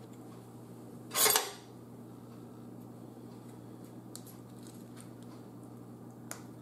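Handling a clear plastic tub of pico de gallo: one short plastic crackle about a second in, the loudest sound, then a few faint clicks of a metal spoon in the tub.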